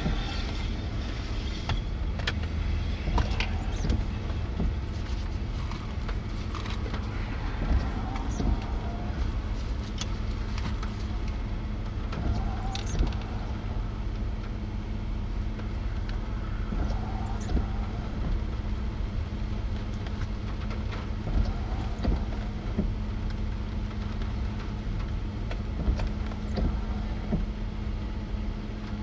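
A parked vehicle idling, heard as a steady low rumble with a steady hum and a few faint clicks.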